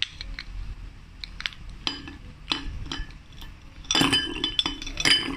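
Ice balls being pushed with a wooden spoon off a ceramic plate into a glass tumbler: scattered small clinks of ice, spoon and plate, then louder clatter twice, about four and five seconds in, as the ice lands in the glass.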